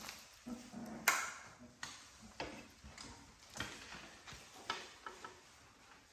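Three-week-old American Bully puppies scuffling and moving about together: irregular soft knocks and scratches, roughly one every half second, the loudest about a second in.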